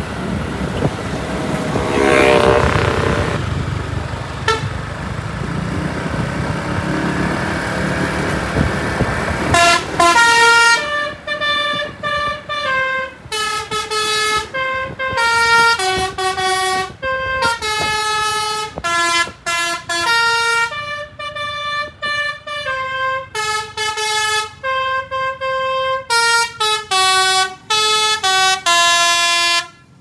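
A coach's basuri telolet multi-tone air horn played by hand as a quick tune of short notes stepping up and down, starting about a third of the way in and running on after it. Before that, road traffic and engine noise with a passing horn about two seconds in.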